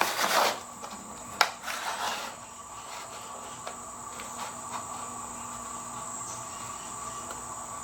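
Rustling and a sharp click as a product package is handled and turned over during the first two seconds. After that comes a steady background hum with a thin, high, constant whine.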